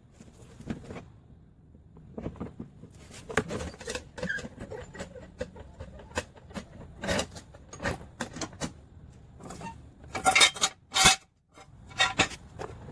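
Metal tools and parts clinking and knocking together in an irregular run, with the loudest clanks, one briefly ringing, about ten seconds in.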